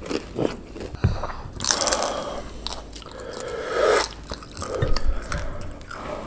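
Gyoza dumplings being bitten into and chewed, with irregular mouth clicks and moist chewing noises.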